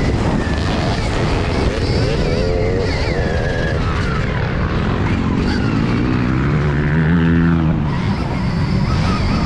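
A vehicle's motor running, its pitch wavering up and down, with a deeper tone that swells and then falls away about seven seconds in.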